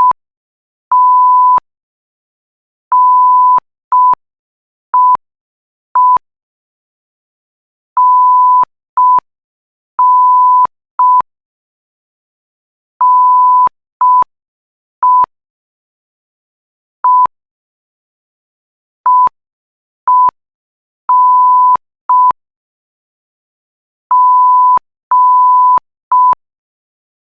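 Censor bleep tone keyed on and off as Morse code: a single steady beep sounded in short dits and long dahs, separated by silent gaps that are longer between letters. The timing runs through the Morse letters B, C, D, E, F and G in order.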